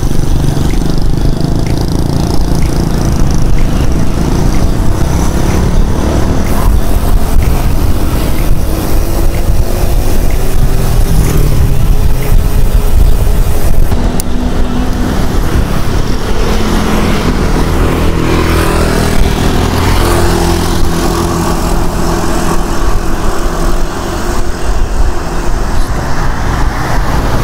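Wind rumbling over the microphone of a camera on a moving bicycle, mixed with road traffic; motorbike engines pass, their pitch gliding slowly, a little before and just after the middle.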